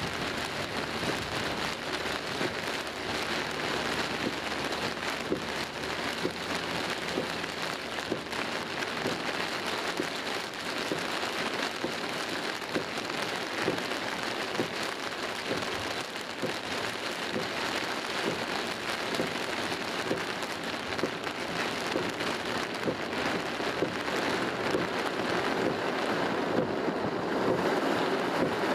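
Heavy rain pelting the car's roof and windscreen, heard from inside the car as a dense, steady patter of drops. It grows a little louder near the end.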